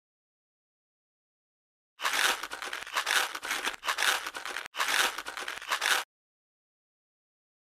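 A rough, crackly noise sound effect lasting about four seconds. It starts about two seconds in, breaks off briefly, resumes, and cuts off abruptly.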